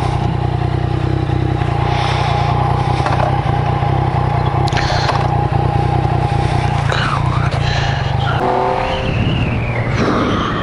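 Yamaha MT-09 motorcycle's three-cylinder engine running steadily under way, with a rushing noise over it. About eight seconds in, the engine note changes.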